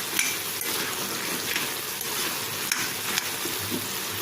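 Matar sabji (peas, carrots and tomato curry) sizzling steadily in the pan as it cooks, with a few light clicks scattered through, like a spoon touching the pan.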